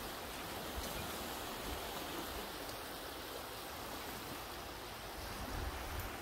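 Steady hiss of small waves washing onto a sandy beach.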